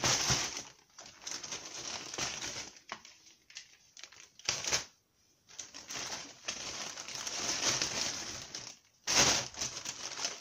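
Shopping bag rustling in irregular bursts as groceries are pulled out of it, with short pauses and a sharper, louder rustle about nine seconds in.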